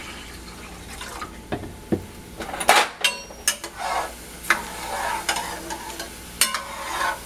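Metal spoon stirring rice in water in an aluminum pot, with irregular scrapes and clinks against the pot's bottom and sides; the sharpest clink comes a little under three seconds in.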